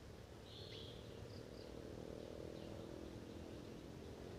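Quiet streamside ambience: short, high insect and bird chirps over a faint, steady low hum.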